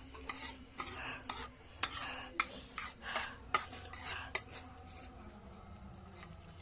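Cutlery clinking and scraping against a bowl as spicy noodles are stirred and eaten, a run of sharp clicks that thins out after about four seconds.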